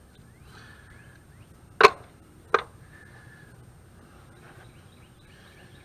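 Two sharp clacks, less than a second apart, from a hand tool or small part being set down during work on the engine.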